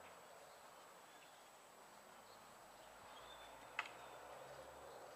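Near silence: faint outdoor ambience with a few faint high chirps and a single sharp click near the end.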